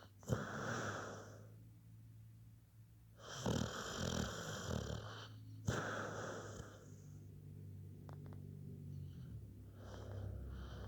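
Snoring: a few slow, noisy breaths a few seconds apart, some starting with a sharp snort.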